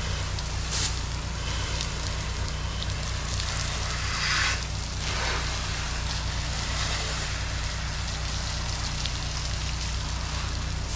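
Gas-powered pressure washer running steadily, its engine hum under the hiss and spatter of the water spray, with a brief louder burst of spray about four seconds in.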